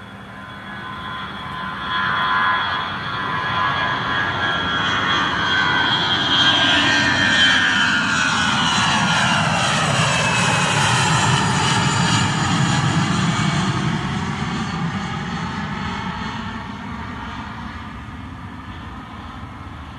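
Airbus airliner's jet engines at takeoff power, growing louder over the first few seconds, passing with a whine that falls in pitch around the middle, then fading away.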